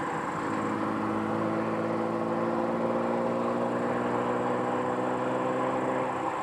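Diesel engines of TEM18 shunting locomotives running under power. The engine note climbs slowly for several seconds, then drops back about six seconds in.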